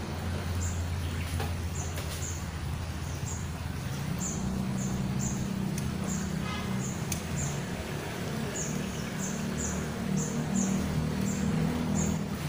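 A small bird chirping over and over, short high chirps that often come in pairs, over the steady low rush of a flooded stream's flowing water.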